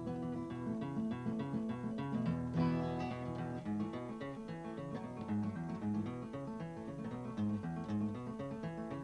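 Acoustic guitar music, plucked and strummed.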